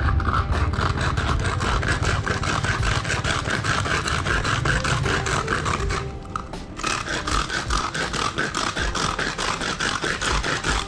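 A tin can being opened by friction: its top rim is rubbed back and forth on a rough hard surface to grind through the lid seam. The scraping goes in fast, even strokes, about five a second, with a brief pause about six seconds in.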